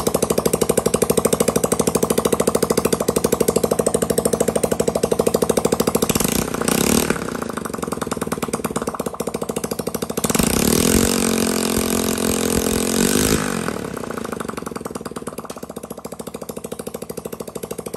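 Lifan single-cylinder four-stroke engine running on a bench with a rapid, even firing beat. It is revved briefly about six seconds in, then revved longer from about ten to thirteen seconds, the pitch rising and falling, before dropping back toward idle.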